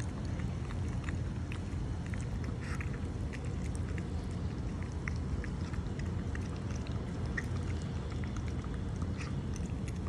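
Small dog eating from a hand-held metal bowl: many scattered small clicks and crunches of chewing and of food against the bowl. A steady low rumble runs underneath.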